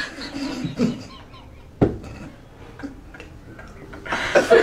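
Soft chuckles and murmurs from a small group of people, with a single sharp click about two seconds in. Voices and laughter pick up loudly near the end.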